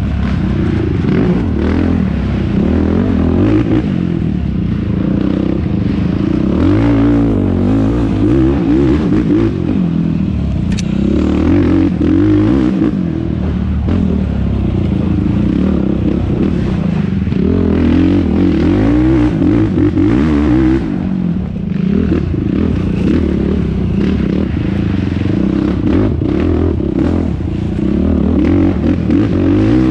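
Yamaha YFZ450R quad's single-cylinder four-stroke engine being raced, revving up and down continuously, with clatter and scraping from the machine over rough ground.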